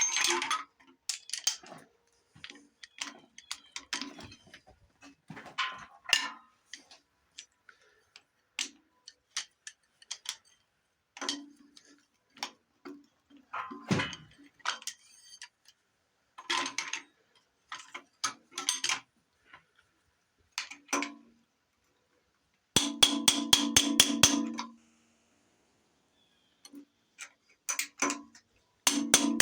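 Metal hand tools clinking and knocking against an engine being taken apart. Two quick, even runs of ringing clicks, one about 23 seconds in and another near the end, sound like a ratchet wrench working bolts loose.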